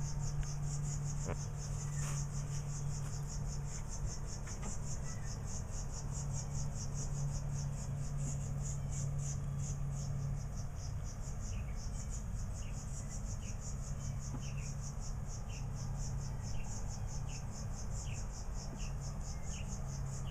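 Insects trilling in a fast, even pulse, over a low steady hum. From about halfway on, a bird gives short downward chip calls about once a second: the mother bird's alarm fussing at the nest.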